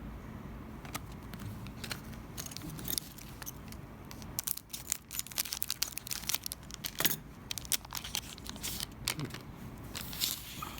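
A trading card pack being opened and handled by hand: a few light clicks at first, then a dense run of crinkling and tearing of the wrapper from about four seconds in.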